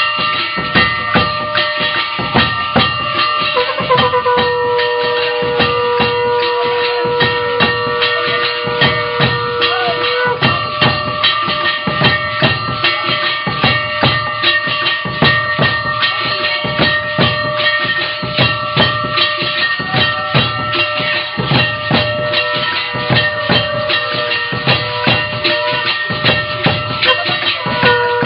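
Temple aarti music: a fast, steady beat of clanging percussion and drum over ringing metal tones. A long held note comes in about four seconds in and lasts about six seconds, and another starts near the end.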